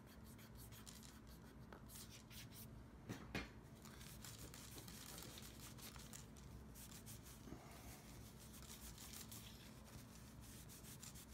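Faint rubbing and scratching of a microfiber cloth being wiped over a camera body, with two short clicks about three seconds in.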